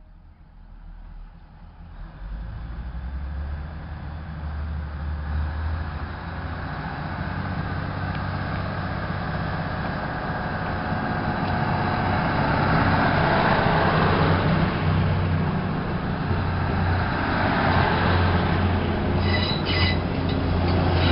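State Railway of Thailand diesel railcar set running in along the platform. Its engine and wheels rumble, growing steadily louder as the cars come alongside, with a few brief high squeals near the end.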